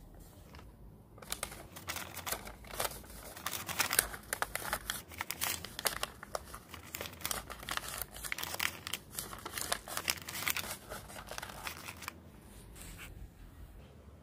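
A sheet of lined notebook paper being crumpled by hand, a dense crackling that starts about a second in and stops a couple of seconds before the end.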